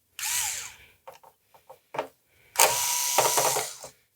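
Screwdriver backing out screws from the PS5's internal frame, with mechanical ratcheting. It comes in two goes: a short one at the start and a longer, louder one in the second half, with small clicks of the screws and tool in between.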